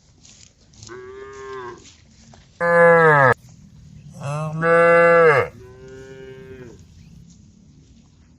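Cows mooing: four moos in turn, the two in the middle much louder, the first of these ending in a falling pitch.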